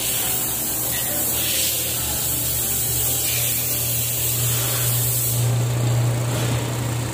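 Steady hiss of air from glass-workshop machinery, which stops about five seconds in, over a low electric motor hum that grows louder toward the end.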